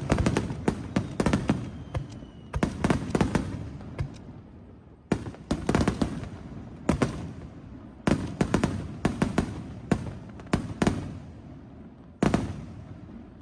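Aerial fireworks shells bursting in repeated volleys of sharp bangs, each volley trailing off in a rumbling echo. A single loud burst comes about twelve seconds in and fades away.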